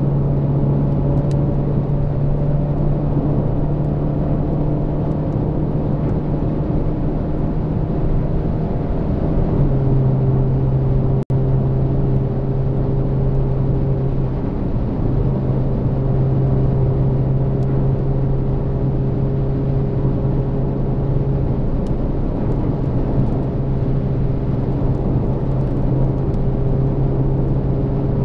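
Volkswagen Golf Mk8 1.4 TSI accelerating at motorway speed of about 170–195 km/h, heard from inside the cabin as a steady engine drone over tyre and wind noise. The engine note steps down in pitch about ten seconds in. The sound cuts out for an instant just past eleven seconds.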